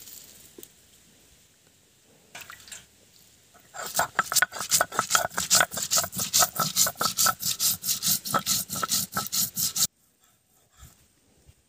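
Whole cumin, coriander seeds and bay leaves being ground on a flat stone slab with a hand-held grinding stone (Bengali shil-nora), making fast, even rasping strokes several times a second. The grinding starts about four seconds in and stops abruptly near the ten-second mark.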